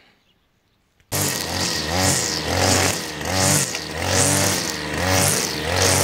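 Petrol brush cutter with trimmer line cutting dry potato stems and weeds, its small engine revving up and down in quick repeated swells. It starts abruptly about a second in, after near silence.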